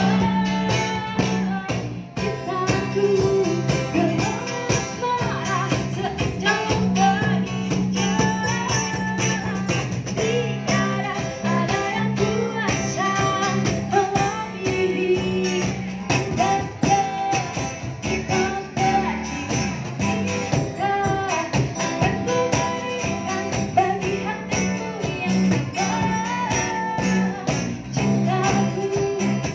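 Music: a school vocal group singing a cover of a pop song with instrumental accompaniment.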